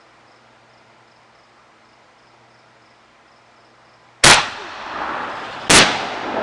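Two fireworks shells bursting overhead, sharp booms about a second and a half apart, each trailing off in a lingering rumble.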